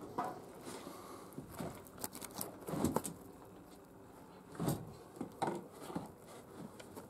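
Scattered light knocks, scrapes and rustles of someone handling things among shelves and loose papers, with a cluster of knocks about two to three seconds in and a few more later.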